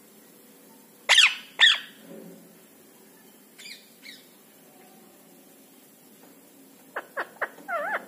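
Indian ringneck (rose-ringed) parakeet calling: two loud, shrill, downward-sweeping screeches about half a second apart a second in, two fainter calls midway, and near the end a quick run of short calls and a wavering call.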